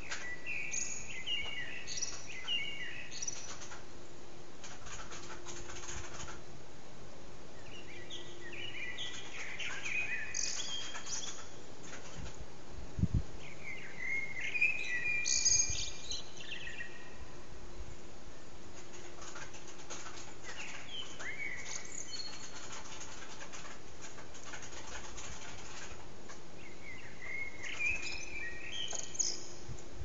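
Eurasian blackbird's dawn song: repeated warbled phrases, each a few seconds long, with pauses of several seconds between them. A single low thump comes near the middle.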